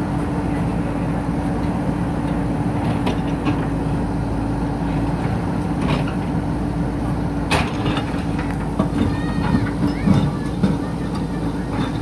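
JCB 3DX backhoe loader's diesel engine running steadily as the backhoe works through brick rubble, with a sharp knock about seven and a half seconds in and several more knocks near the end.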